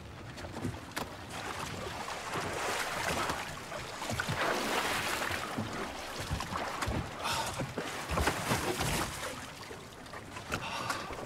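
A man being hauled aboard a wooden fishing boat: knocks, scrapes and creaks on the wooden hull and rustling cloth, heaviest a few seconds in, over lapping water and wind.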